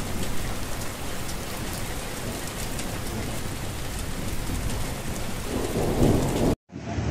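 Steady rain with a low rumble of thunder underneath. The rumble swells louder near the end, then the sound cuts off suddenly.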